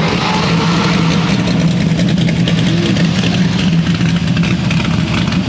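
Corvette V8 idling with a choppy, lumpy lope ('chopping'), the sound of an aggressive camshaft.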